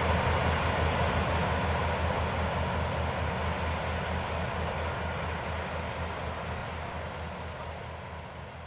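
Palesse GS12 combine harvesters running at a distance, a steady diesel drone with a throbbing low rumble, under a steady high chirring of insects. The whole sound fades out gradually.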